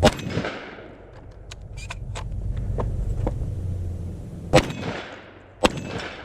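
Three shotgun blasts, each with a short echo: one right at the start and two about a second apart near the end. Fainter clicks and knocks fall in between.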